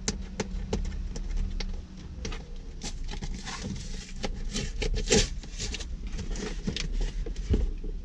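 A cardboard shipping box being handled and opened by hand: irregular scraping, rustling and tapping of the cardboard, with many small clicks and knocks, a little louder around the middle.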